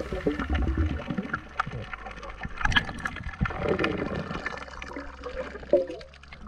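Underwater water noise heard by a submerged camera: bubbling and gurgling with scattered sharp clicks and knocks.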